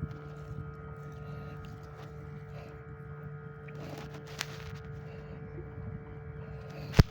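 A steady motor-like hum holding one pitch, with a few faint clicks in the middle and one sharp knock just before the end.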